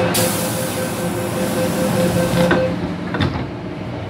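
MTR M-Train door closing: a rapid, steady beeping warning tone over a hiss, then the doors shut with two knocks, about two and a half and three seconds in.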